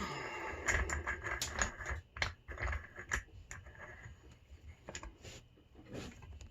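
Small metal clicks and rattles from a padlock and lockpicking tools being handled, busiest in the first two seconds and then sparse single clicks.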